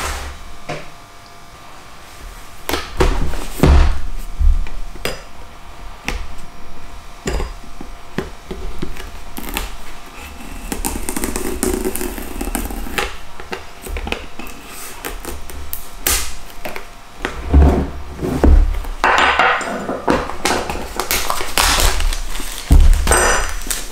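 Handling of a plastic-shrink-wrapped box on a wooden table: several sharp knocks and taps of the box against the wood, a knife slitting the shrink wrap, and the plastic film crinkling as it is peeled off in the last few seconds.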